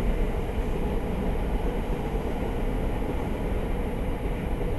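Steady low rumbling background noise with a faint even hum, unchanging throughout.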